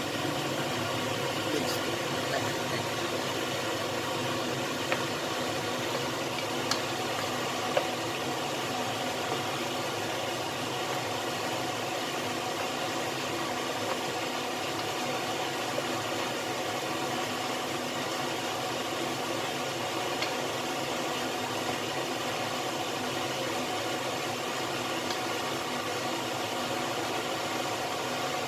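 A steady whir over chicken wings, potatoes and carrots simmering in sauce in a wok. A wooden spatula stirs, giving a few light knocks against the wok in the first eight seconds.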